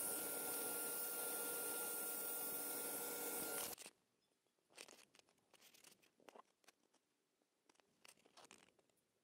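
A power tool's motor running at steady speed, cutting off abruptly about four seconds in, then faint scattered clicks and rustles.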